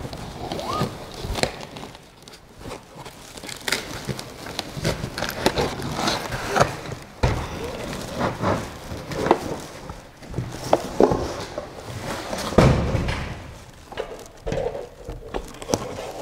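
Unpacking noise: cardboard box flaps and packing rustling and scraping, with scattered knocks as the printer's metal frame parts are lifted out and set down, the heaviest a thump about twelve seconds in.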